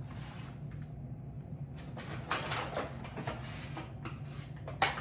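Groceries being unpacked by hand: a bag rustling and items being handled, with a sharp clack near the end as something is set down on the counter.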